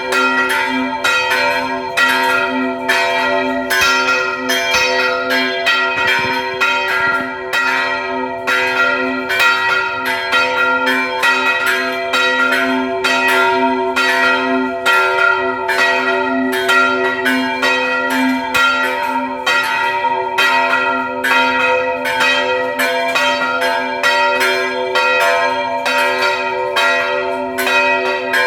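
Old French-cast church bells, pulled by hand on ropes, ringing in a continuous peal of quick repeated strokes. Their tones overlap into a sustained, humming ring.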